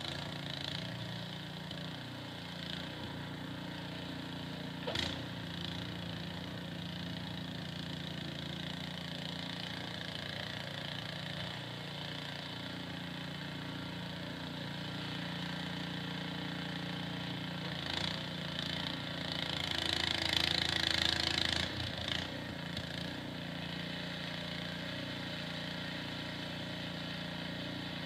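Small engine running steadily, with a sharp click about five seconds in and a louder hissing rush for a few seconds about two-thirds of the way through.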